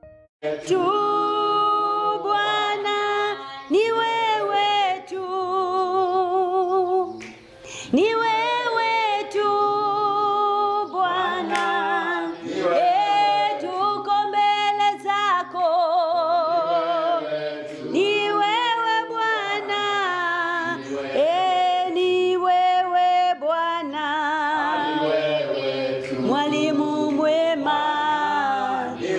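A woman singing a slow worship song, holding long notes with a wide vibrato.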